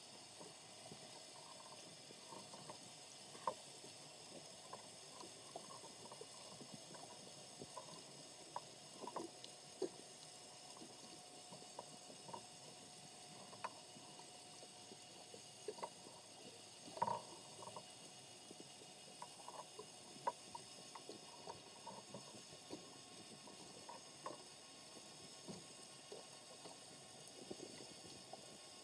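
Faint underwater sound picked up through a camera's waterproof housing: a steady low hiss and hum with scattered, irregular clicks and pops, the loudest about 17 seconds in.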